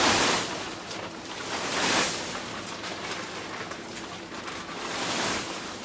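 Plastic tarp rustling and crinkling as it is pulled over a PVC canopy frame, in three surges a couple of seconds apart.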